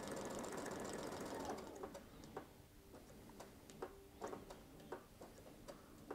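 Domestic sewing machine running steadily as it stitches through fabric on a paper foundation, stopping about a second and a half in. A few light clicks and taps follow.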